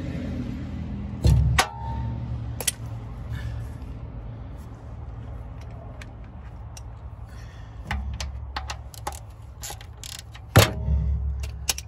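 Socket wrench and hands working a car's oil drain plug, heard as scattered metallic clicks and knocks, with two louder thumps about a second in and near the end, over a steady low rumble.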